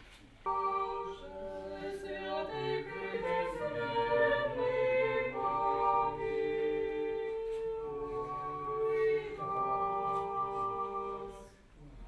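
A cappella choir singing a slow chant in held notes. It starts abruptly about half a second in and dies away near the end.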